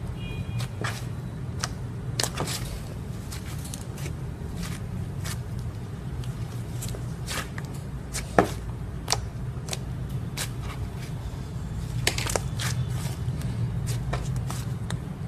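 Thick coffee-coloured slime being pressed and squished by hand, giving irregular sharp pops and crackles, the loudest just past halfway, over a steady low hum.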